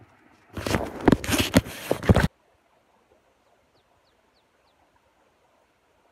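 Loud rustling and knocking of handling noise close to the microphone, about two seconds long, which cuts off abruptly. A very faint quiet background follows.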